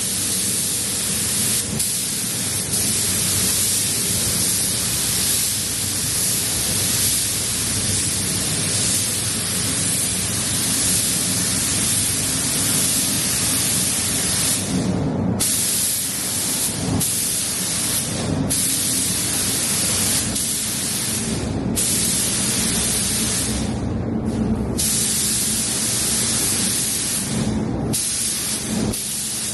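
Automotive paint spray gun hissing steadily as it sprays. In the second half it cuts off briefly about seven times as the trigger is let go. A steady low hum runs underneath.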